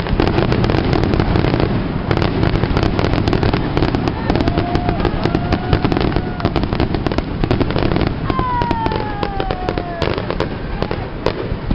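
Fireworks display: rapid crackling and banging bursts over a continuous rumble of explosions. About eight seconds in, a long whistle falls steadily in pitch.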